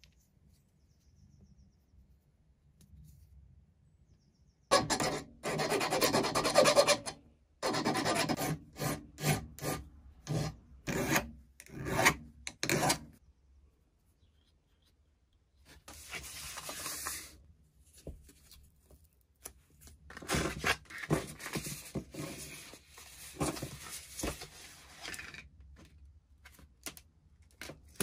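Rasping strokes of a small metal pulley sleeve being worked by hand against an abrasive. A long run of rubbing starts about five seconds in. It is followed by quick separate strokes about twice a second, then more bouts of rubbing after a short pause.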